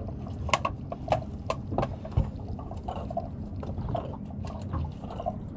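Scattered knocks and taps as a freshly landed king salmon is handled and sized up on the boat, over a steady low rumble.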